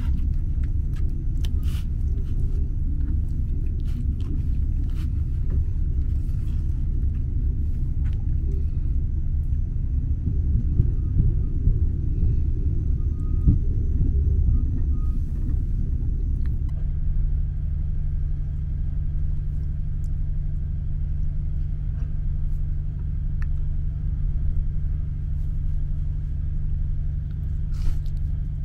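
Sleeper train carriage running, a steady low rumble felt from inside the compartment, with occasional light clicks of a plastic fork against the plastic meal tray in the first half. About two-thirds of the way through, a steady low hum joins the rumble.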